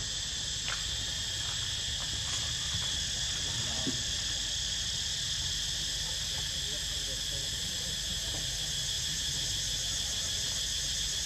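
Steady, high-pitched insect chorus in several shrill bands that never lets up, over a low rumble, with a few faint clicks.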